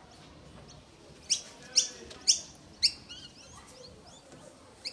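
A bird calling: four loud, sharp, downward-sweeping calls about half a second apart, starting about a second in, followed by softer chirps and one more call near the end.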